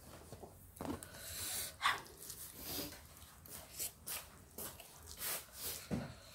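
Mouth noises of someone eating rice, fried fish and chilli sambal by hand: chewing and smacking with sharp breaths, in a string of short, fairly quiet noisy bursts.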